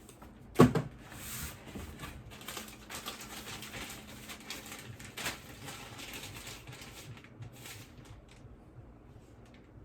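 A sharp knock about half a second in, then several seconds of crackly rustling and crinkling of packaging as items are handled and unwrapped, thinning out near the end.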